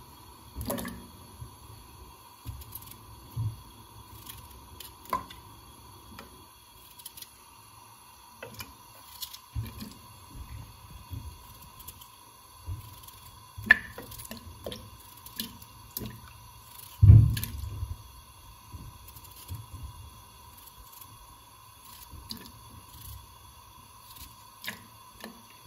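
Raw potato being cut into chunks with a knife over a pot of water, the pieces dropping in with scattered soft plops and splashes. One louder thud about 17 seconds in.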